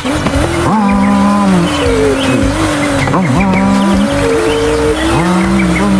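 Race car engine and tyre-squeal sound effect: several engine notes held at once, stepping and gliding up and down in pitch.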